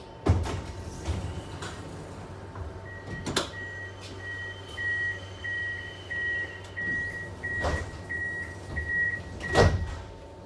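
Tram door warning beeper sounding as the doors close: a high tone pulsing just under twice a second for about seven seconds. Several clunks of the doors and fittings come with it, the loudest just before the beeping stops, over the tram's steady electrical hum.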